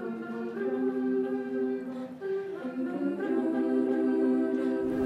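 Girls' choir singing a cappella: several voices hold sustained notes together in chords that shift every second or so.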